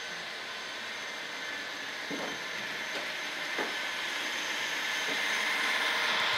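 H0-scale model train, a diesel locomotive hauling coaches, running along two-rail track toward the listener: a steady whirring hiss of motor and wheels that grows louder as it nears.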